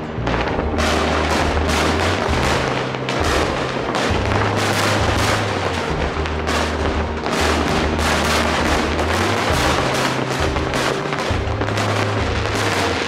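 Fireworks display: a dense, irregular barrage of firework bangs, several a second, mixed with music that has held bass notes changing every second or two.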